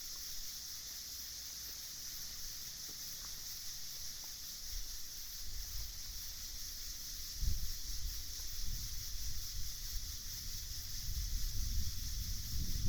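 Night-time outdoor ambience: a steady high-pitched drone typical of a chorus of night insects, with gusts of wind rumbling on the microphone that grow stronger about halfway through and again near the end.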